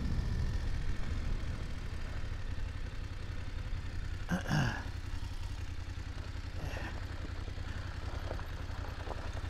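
BMW F850GS Adventure's parallel-twin engine running steadily as the bike rolls down a loose, stony gravel track, with one brief louder sound about four and a half seconds in.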